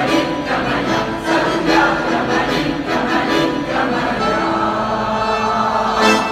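Amateur mixed choir singing a Russian song together, settling into long held notes in the second half and swelling just before the end.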